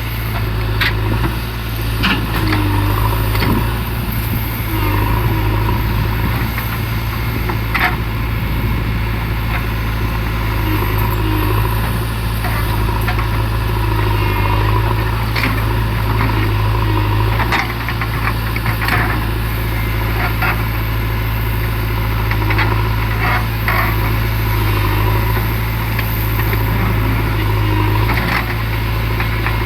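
JCB 3DX backhoe loader's diesel engine running steadily, its pitch rising and falling slightly, with scattered short sharp knocks.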